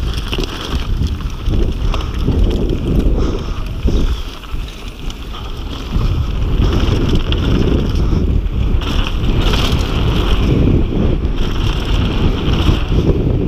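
Wind buffeting the microphone of a downhill mountain bike ridden fast down a dirt trail, mixed with the tyres rolling over loose dirt and the bike rattling. The noise eases for about two seconds around four seconds in, then comes back up.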